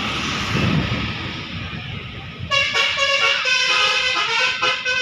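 A bus goes by with a loud noisy rumble, then about two and a half seconds in its Basuri musical horn starts up, playing a tune of several stepped notes.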